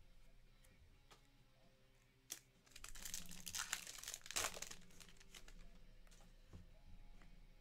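Trading-card pack wrapper being handled and crinkled by hand: faint clicks, a sharp click about two seconds in, then about two seconds of crinkling, quieter again near the end.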